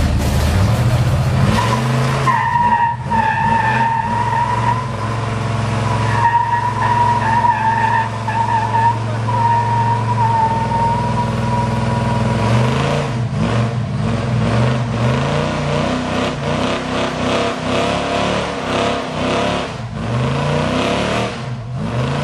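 Muscle car doing a burnout. For the first half its tyres squeal in a long, wavering tone over the engine held at high revs. After that the engine revs rise and fall repeatedly while the wheels keep spinning.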